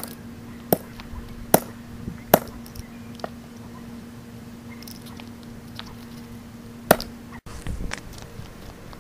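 Full-size sledgehammer striking a Master Lock spin-dial padlock: sharp whacks, four about a second apart at the start, then a single strong one near the end.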